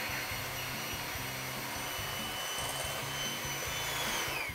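Electric hand mixer running steadily, its beaters whipping whole eggs in a glass bowl until they foam and triple in volume. Its motor whine falls away as it is switched off at the very end.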